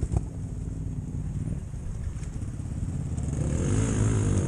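Off-road motorcycle engine running at low revs, with a sharp knock just after the start; the revs pick up and waver near the end.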